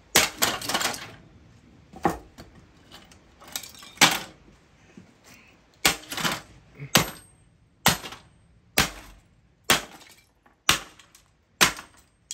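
Repeated hard blows smashing a thick plastic electronics casing: about a dozen sharp cracks and clatters, settling into about one strike a second in the second half.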